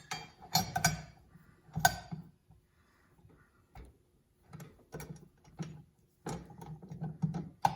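Scattered metal clicks and knocks as a beater is fitted onto a KitchenAid stand mixer's attachment shaft; the motor is not running.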